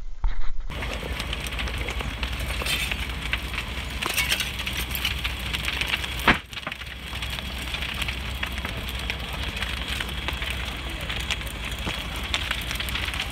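A house in full fire burning, with a continuous rush of flame and dense crackling and popping.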